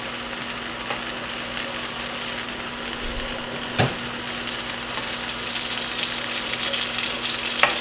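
Butter melting and foaming in a nonstick frying pan over a gas burner, sizzling steadily, with a faint steady hum beneath and one short click about four seconds in.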